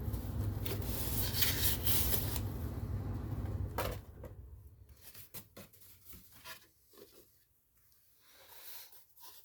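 Cardboard box and packaging being opened by hand: about four seconds of continuous rubbing and scraping ending in a sharp click, then quieter scattered rustles and light taps.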